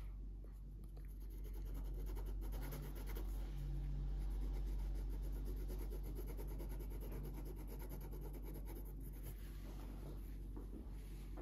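Felt-tip pen scribbling quickly back and forth on paper, colouring in an area, with dense scratchy strokes that thin out near the end. A low steady hum runs underneath.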